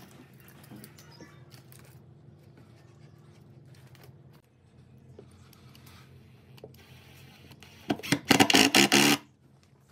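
Ozito cordless impact driver driving a screw up through a wooden base into a block, in one loud burst of about a second near the end, after a stretch of quiet handling sounds.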